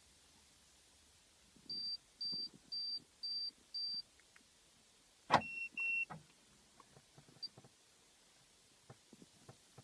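Car electronics beeping: five short high beeps, about two a second, then a sharp click and two shorter, lower beeps. This is the car stereo and alarm system responding as the stereo is switched off from the alarm key fob.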